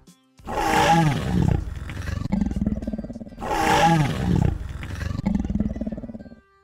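A dinosaur roar sound effect, played twice: two identical long roars of about three seconds each, the second starting right after the first ends.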